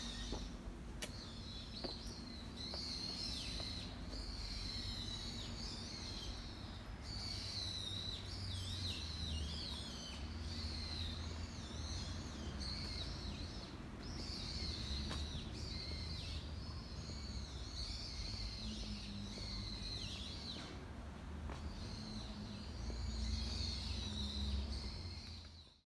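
Small birds twittering and chirping in the trees, a dense chatter of short high calls broken by brief pauses, over a low steady rumble. It fades out just at the end.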